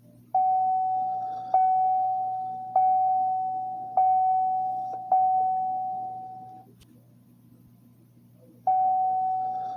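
General Motors door chime: a single bell-like tone struck five times, about once a second, each strike ringing down. It stops, and after a pause of about two seconds starts again near the end. A faint low hum runs underneath.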